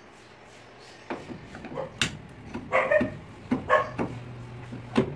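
Short animal calls, two or three about a second apart, starting a second or two in, with a few sharp clicks among them.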